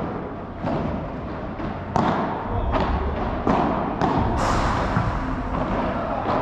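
Padel rally: a string of sharp, echoing pops as the ball is struck by the paddles and bounces on the court, one every half second to a second.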